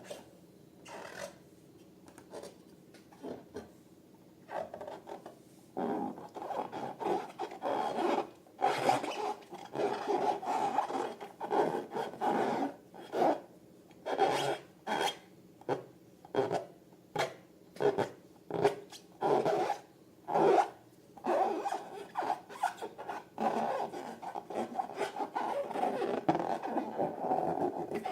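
Latex balloons being rubbed and squeezed by hand: a run of squeaky rubbing strokes, roughly one a second, sparse at first and coming thick and steady from about six seconds in.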